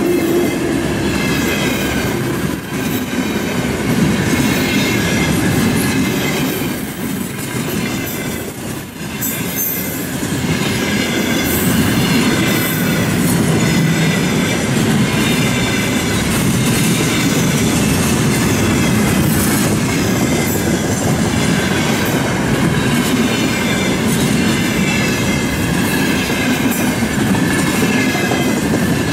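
Loaded container flatcars of a freight train rolling past, a steady din of steel wheels on the rails with high ringing tones above it. The noise dips briefly about a third of the way through, then carries on.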